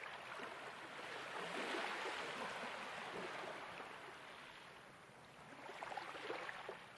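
Soft ocean waves washing onto a shore. One wave swells and recedes over several seconds, and a smaller one comes in near the end.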